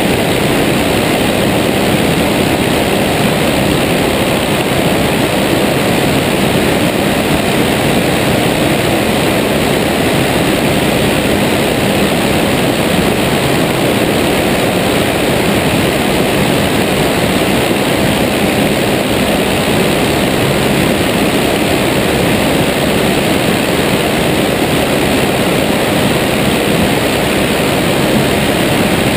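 Tiger Moth biplane in flight: its engine and propeller run steadily, heard from a wing-strut camera in the open airstream, so heavy wind rush mixes with the engine note.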